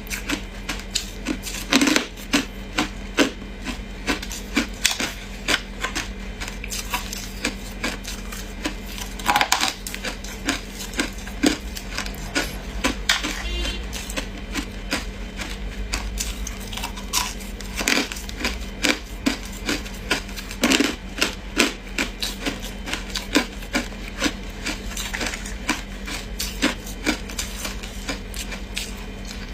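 Hard ice being crunched and chewed close to the microphone: irregular sharp cracks and crunches, sometimes several a second, over a steady low hum.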